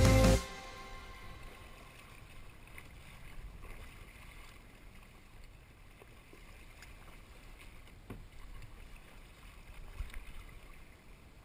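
Music cuts off abruptly about half a second in, leaving faint kayak paddling: a paddle blade dipping and splashing in the water with a few soft drips and knocks.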